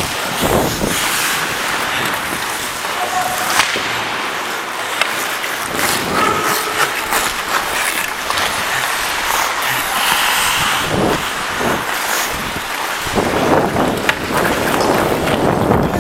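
Hockey skates scraping and carving on ice, with wind rushing over the body-worn camera's microphone and scattered sharp clacks of sticks and puck.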